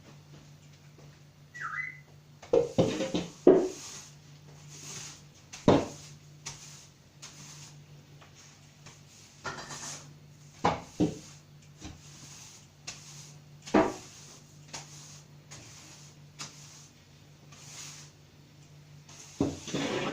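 A short whistle, most likely from the pet parrot, about two seconds in, then a series of scattered knocks and clatters over a steady low hum.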